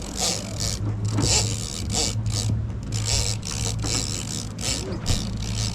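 Boat engine running with a steady low hum, under a scratchy, rasping mechanical noise that repeats irregularly two or three times a second.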